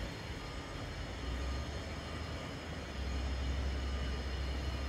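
Low, steady rumble of a diesel locomotive approaching while still out of sight, growing louder about three seconds in.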